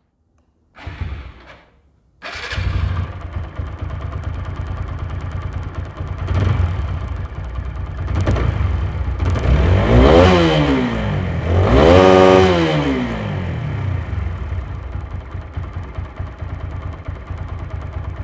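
TVS Apache RTR 4V single-cylinder motorcycle engine, freshly rebuilt with a new piston and rings, starting about two seconds in and idling. It is revved up and back down twice, about ten and twelve seconds in, then settles back to idle.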